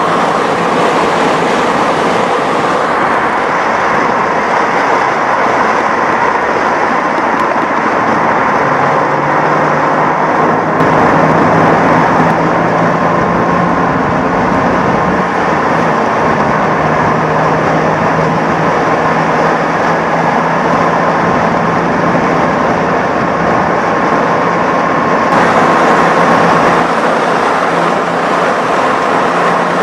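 Panther Kallista roadster at speed, heard from on board: its engine running steadily under a loud rush of wind and road noise.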